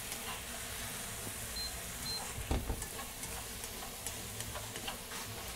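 Tofu cubes sizzling in a hot non-stick frying pan while a slotted spatula stirs them, with light scraping clicks of the spatula against the pan and one sharper knock about two and a half seconds in.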